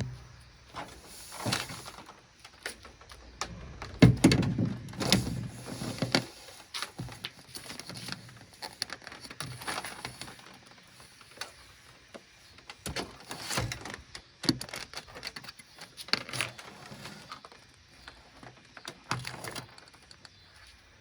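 Irregular knocks, bumps and clicks of a flat-screen TV's plastic case being handled and laid face down on a table, the heaviest bumps about four seconds in and again near the middle.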